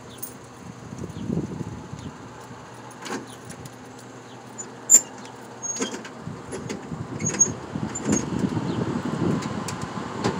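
Key and lock of a Dixie Narco 501e soda vending machine: several sharp metallic clicks as the lock is worked, the loudest about halfway through. Near the end comes a low rumble as the front door is unlatched and swung open, over a steady faint hum.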